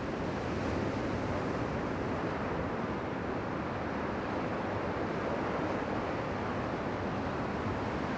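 Steady rushing noise, even throughout, with no distinct knocks, calls or pitch.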